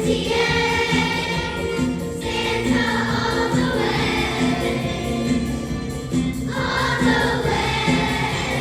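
Choir singing.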